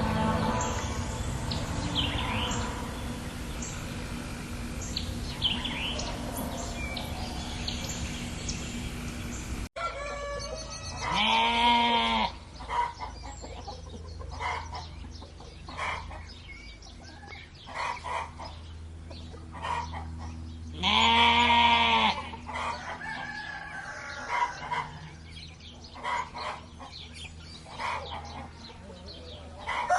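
Small birds chirping over steady outdoor noise, then a sudden cut to a rooster crowing twice, about ten seconds apart, with hens clucking in between.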